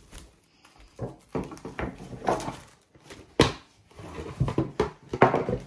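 Plastic cling film being pulled from the roll and stretched over a baking tray, crinkling and squeaking in short irregular bursts, with a sharp snap about three and a half seconds in.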